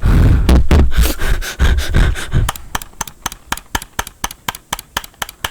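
Rubbing and handling rumble against the microphone, then a computer mouse clicked rapidly, about five sharp clicks a second, from about halfway in.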